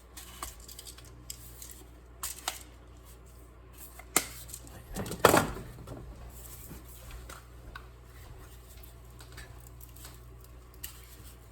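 Scattered clicks and knocks of kitchen utensils against frying pans, with one louder clatter about five seconds in, over a steady low hum.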